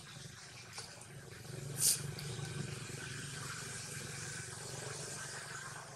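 A motor vehicle's engine running steadily, a low hum with a hiss of noise over it, growing louder about one and a half seconds in. A brief high hiss about two seconds in is the loudest sound.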